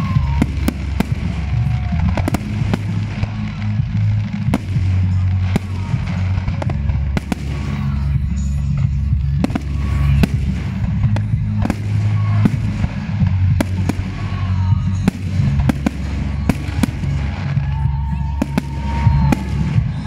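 Aerial fireworks bursting in quick succession: sharp bangs and crackling reports come many times a second and keep up without a break, over a steady low rumble.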